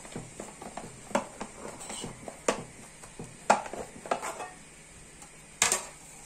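A flat glass lid pressed by hand onto shredded kadayıf pastry in a glass baking dish: scattered light knocks and clinks of glass on glass, with a sharper knock near the end as the lid is lifted off.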